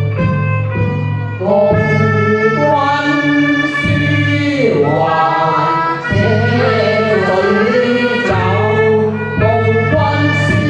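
Cantonese operatic singing: long, drawn-out sung notes with pitch slides, over a steady low instrumental accompaniment.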